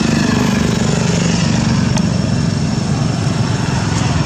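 A small engine running steadily at idle, low and unbroken.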